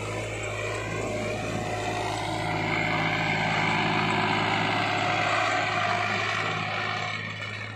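VST Viraaj tractor's diesel engine working steadily as it pulls a cultivator through dry soil, growing louder as it passes close by and fading again near the end.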